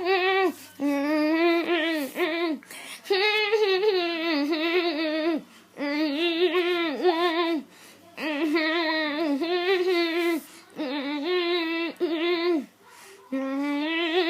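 A girl's voice singing a wordless tune in phrases of one to two seconds with short breaks, each held note wobbling quickly and evenly in pitch.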